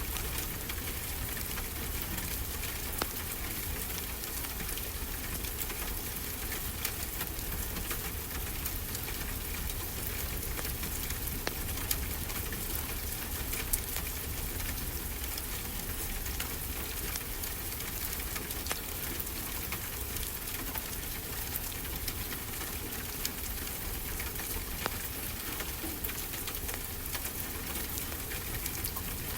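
Wood fire crackling, scattered small snaps and a few sharper pops, over a steady hiss and low rumble of ocean surf.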